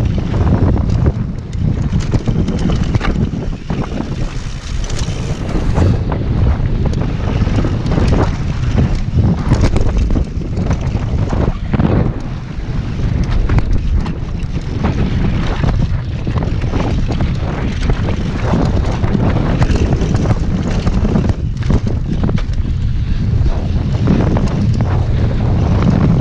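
Wind buffeting the handlebar-mounted action camera's microphone as a downhill mountain bike runs fast down a rocky dirt trail, with frequent knocks and rattles from the bike over the rough ground.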